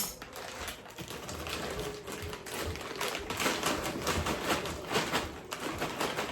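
Rapid, irregular clicking and tapping of hard objects, many small strikes close together.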